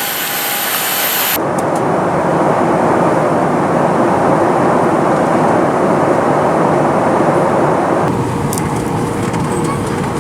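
Loud, steady rushing roar of a jet airliner heard from inside the cabin during landing. The noise changes abruptly about a second and a half in and again about eight seconds in.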